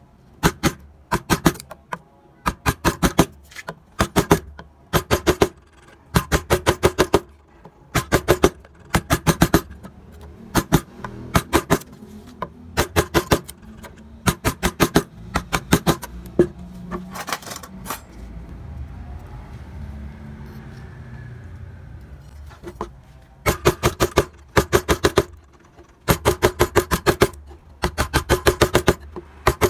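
Flat wood-carving chisel worked by hand into a wooden carving, giving quick bursts of sharp knocks and clicks about once a second as chips are cut away. The bursts pause for a few seconds past the middle.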